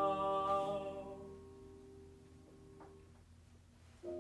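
A male singer holds the last word of a verse, "plough", on a long note that fades out about a second in. Accompaniment chords then ring on and slowly die away, and a new chord is struck just before the end.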